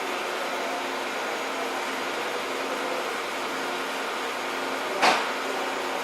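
Steady machine drone with faint steady tones, broken by a single sharp knock about five seconds in.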